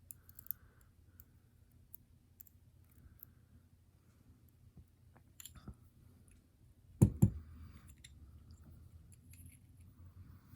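Small scattered clicks and light taps of lock parts being handled during the disassembly of a euro profile pin-tumbler cylinder, as its pins and springs are taken out. Two sharp knocks come close together about seven seconds in.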